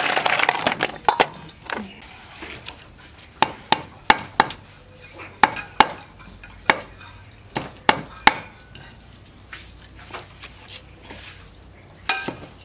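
Snail shells clattering as they are turned by hand in a stainless steel bowl. From about a second in, a cleaver chops on a thick wooden chopping block in a dozen or so sharp, irregularly spaced strokes; fainter taps follow, with one more stroke near the end.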